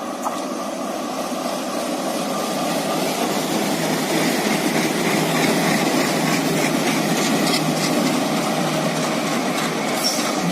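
ALCo diesel locomotive running, its engine noise growing steadily louder.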